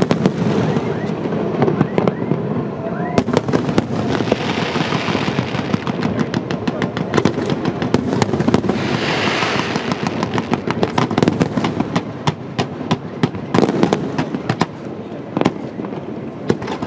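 Fireworks display: a rapid, continuous stream of bangs and crackling from aerial shell bursts and low fan-shaped barrages, densest in the middle.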